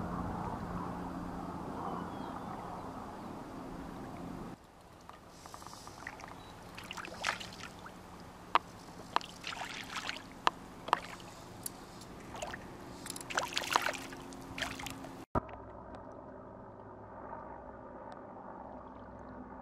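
A hooked rainbow trout splashing and thrashing at the water's surface, a series of sharp splashes from about 6 to 14 seconds in. Before and after, a steady low background of moving water with a hum, broken by abrupt cuts.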